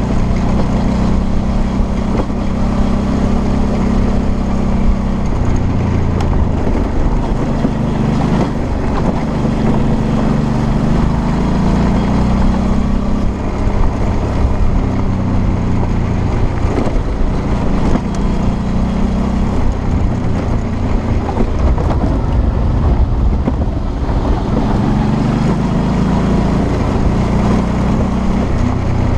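Suzuki V-Strom 650's V-twin engine running under way, its revs rising and falling gently, with wind rushing over the microphone.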